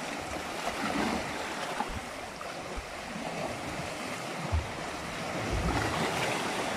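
Steady wash of waves and wind around a small fishing boat, with a couple of low wind thumps on the microphone past the middle.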